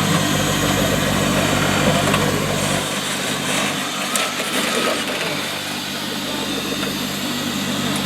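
Off-road 4x4 competition truck's engine running steadily near idle, its low hum weakening about three seconds in.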